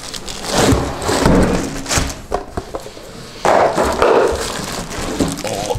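Cardboard and packing material rustling and scraping as hands work inside a large cardboard box, with several dull thumps.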